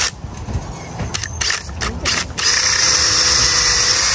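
Cordless drill boring a hole into a watermelon. It gives a few short stuttering bursts, then runs steadily from about two and a half seconds in.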